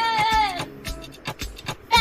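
A high voice holds a long "eeh" over music and drops off about half a second in, followed by a quieter run of short clicks.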